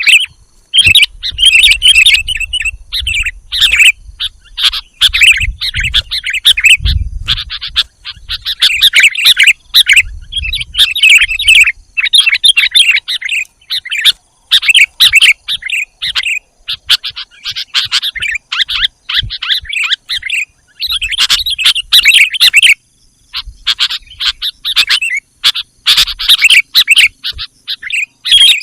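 Sooty-headed bulbul (kutilang) singing loudly: busy bursts of bubbly chirping phrases, each about a second long with short pauses between, one after another without a break, the kind of call used to lure wild bulbuls.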